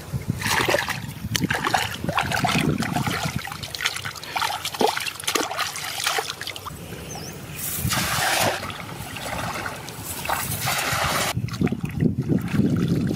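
Shallow muddy water splashing and sloshing as hands dig and scoop mud under the surface, in irregular bursts, louder twice in the second half.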